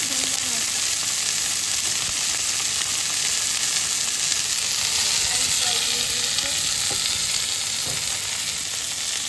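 Hot oil sizzling steadily in a pan as food fries, with a couple of light knocks late on.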